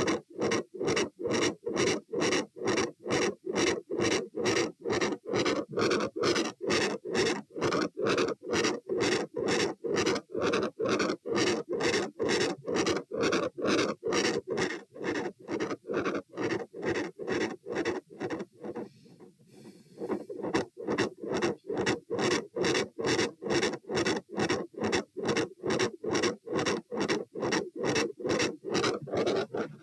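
Heartbeats heard through a stethoscope chest piece: a steady, regular run of beats over a continuous background sound between them. The beats break off briefly about two-thirds of the way through as the chest piece is moved to another listening point, then resume.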